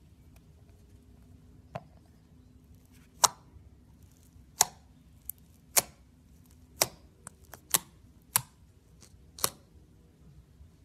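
Fingers poking and pressing clear blue slime in a plastic tub, giving about ten sharp popping clicks at irregular intervals.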